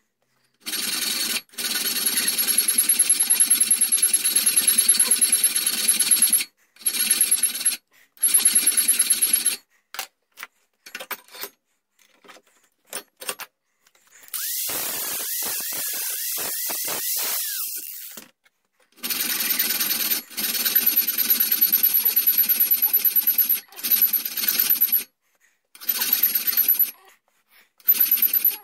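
Angle grinder running against a metal bar in a vise, grinding the square section of a wheellock's main shaft: long runs with a thin high whine, broken by short pauses and a few clicks, and one stretch of a different, smoother running sound in the middle.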